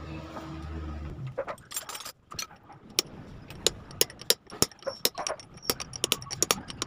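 A metal hand tool clicking and tapping sharply and irregularly against parts on a motorcycle engine crankcase, with a light metallic ring. A low steady hum is heard at first and stops about a second in.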